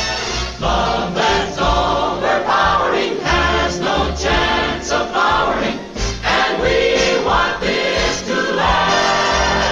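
Music: a choir singing with instrumental backing, in short sung phrases over a steady bass.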